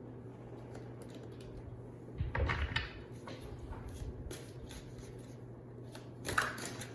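Tarot cards being shuffled and handled, in two short bursts of rapid riffling and rustling: one about two seconds in and a shorter one near the end. A low steady hum runs underneath.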